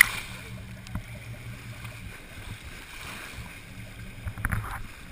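Boat engine running steadily at low speed under the rush and splash of water along the hull, with a loud splash of spray right at the start.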